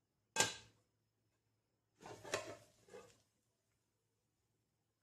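A plate set down on the counter with a single knock, then about two seconds in a second and a half of light scraping and knocks as the cooked Spanish omelette is slid out of the non-stick pan onto the plate.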